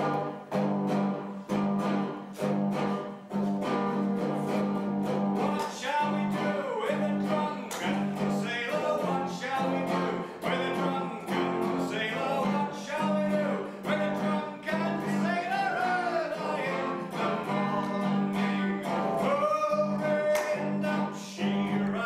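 A small live band playing a song with a voice singing: electric guitar with accordion over a steady pulsing low note.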